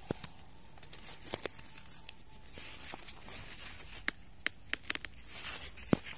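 Maize leaves and husk rustling and crackling as a hand grips and handles a corn plant, with scattered sharp crackles: a quick cluster about four to five seconds in and a louder one near the end.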